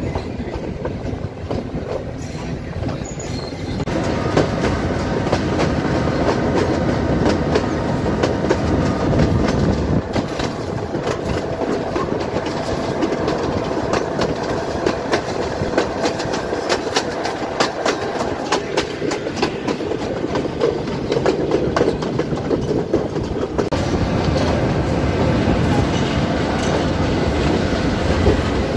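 Passenger train running at speed, heard from an open carriage doorway: a steady rumble with wheels clattering over the rail joints, getting louder about four seconds in.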